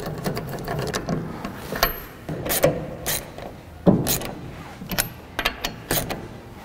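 Hand ratchet clicking in short, irregular runs as wheel nuts are run down onto the hub, with a few louder metallic knocks between.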